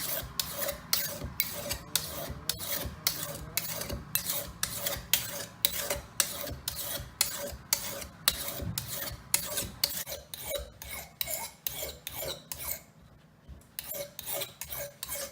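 Steel knife blade stroked back and forth across the fine finishing side of a sharpening stone, a rhythmic rasp at about two to three strokes a second, with a short pause about thirteen seconds in. This is the finishing stage of the sharpening.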